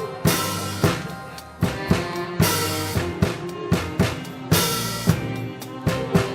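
Live dance band playing a social-dance tune: a drum kit keeps a steady beat of kick and snare under held instrumental notes, with a big bright drum hit about every two seconds.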